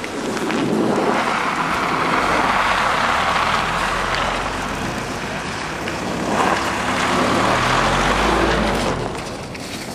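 A car passing close by on a snowy road: engine hum and tyre noise, swelling twice before fading near the end.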